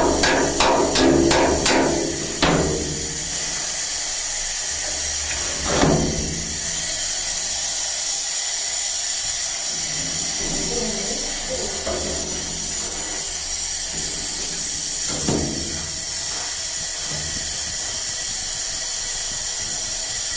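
Stick-welding arc giving a steady crackling hiss. A few rhythmic music beats are heard in the first couple of seconds.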